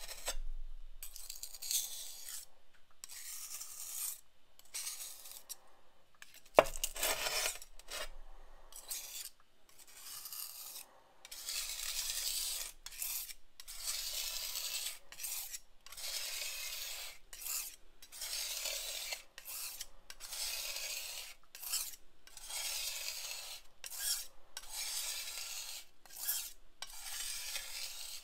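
Glass muller grinding genuine azurite pigment (PB30) into watercolour paint on a glass slab. It makes a gritty, rasping scrape in repeated strokes with short pauses, and there is one sharp knock of glass on glass about six and a half seconds in. The grit comes from the coarse mineral particles still being ground down.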